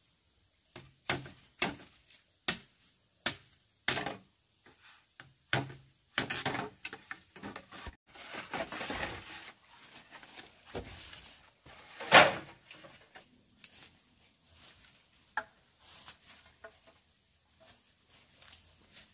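Sharp wooden knocks, about one a second for the first six seconds, as wood is struck. Then come rustling and crackling of wood being handled, and a single loudest knock about twelve seconds in, followed by a few faint clicks.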